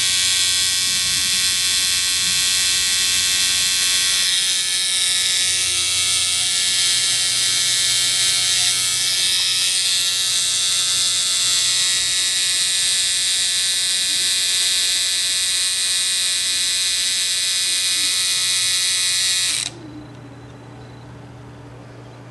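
Stingray X2 rotary tattoo machine running with a steady high buzz, its give adjustment backed out about three turns for a softer, less solid hit. It switches off suddenly near the end, leaving a low hum.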